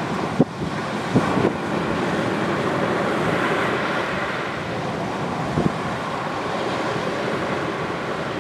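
Surf washing steadily onto a sandy beach, with wind on the microphone. A few short, sharp crackles from a burning driftwood bonfire cut through, about half a second in, twice more around a second and a half, and once more later on.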